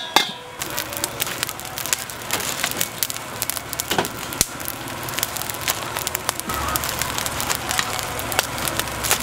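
Dense, irregular crackling and clicking from the cooking at a street-food stall, with a low rumble joining about two-thirds of the way through.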